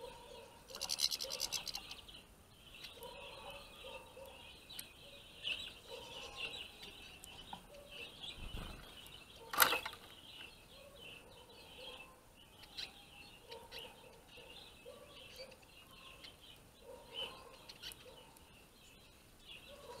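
Small finches twittering and chirping with short, quick notes, with a louder burst of chirping about a second in and a single sharp click about halfway through.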